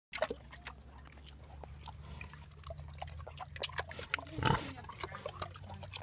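A pig eating with its snout in a plastic feeding tub: quick wet chewing and smacking clicks, with one louder noise from the pig about four and a half seconds in.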